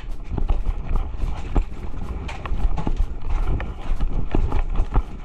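Footsteps of a player walking on the ground, about two steps a second, with a steady low rumble underneath.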